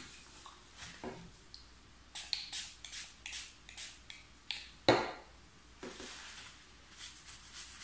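Small pump spray bottle of makeup brush cleaner spritzing onto a makeup brush in a quick run of short hisses, followed by a single knock about five seconds in. Near the end, the brush bristles are swept over a paper tissue with a soft rustle.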